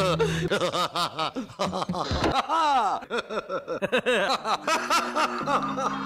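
A man's exaggerated cartoon laugh: a long run of quick ha-ha notes, each swooping up and down in pitch. Music with steady held notes comes in about five seconds in.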